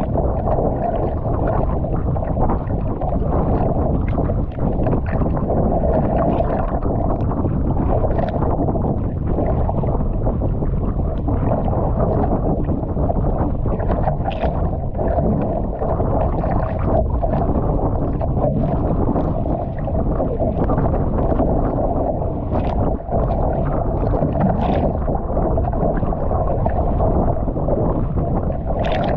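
Wind buffeting the microphone over choppy sea water rushing and slapping along a kayak's hull, as a steady loud noise. Short splashes from paddle strokes and breaking chop come through every few seconds.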